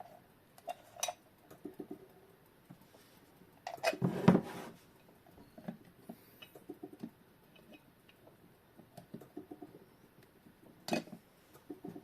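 Small metal and ceramic clicks and clinks as a quartz clock movement is worked loose inside a porcelain case, with a louder rattle about four seconds in and a sharp knock near the end.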